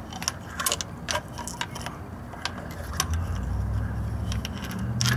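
Light metallic clinks and taps of a magnetic pickup tool and extension working down in a spark plug well of a Ford 5.4 V8's cylinder head, as a new spark plug is fished into place. A low hum builds from about three seconds in.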